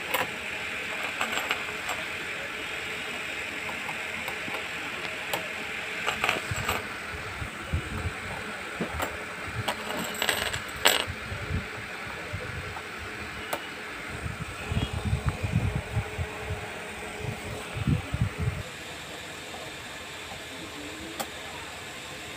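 Galvanized steel strips and small brass screws and hooks clinking and tapping against each other as they are handled on a wooden table, with scattered sharp metallic clicks, the loudest about halfway through. A run of dull knocks follows later, over a steady background hiss.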